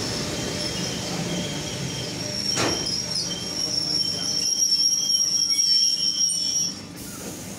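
ER9M electric multiple unit rolling slowly into the station, with a rumble and a steady high squeal from its wheels and brakes as it slows. There is a sharp knock about two and a half seconds in. The squeal and rumble die away near the end as the train comes to a stop.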